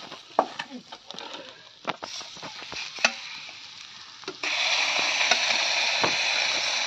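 Rui fish steaks frying in hot oil in an iron kadai: sizzling with scattered clinks and scrapes of a steel spatula. About four seconds in, a louder, steady sizzle starts suddenly.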